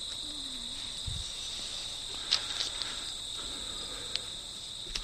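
Crickets and other insects chirping in a steady high drone, with a few faint sharp clicks and a soft low thud about a second in.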